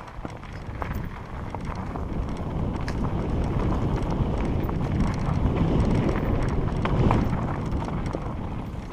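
Mountain bike descending a rocky dirt singletrack: wind buffeting the microphone over tyres crunching on loose stones, with scattered clicks and rattles as the bike rides over rocks. The rumble grows louder toward a peak about seven seconds in.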